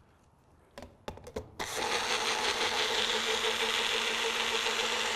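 A few plastic clicks as the cup goes onto a Magic Bullet personal blender. About a second and a half in, its motor starts and runs steadily with a constant whine, blending a coffee drink.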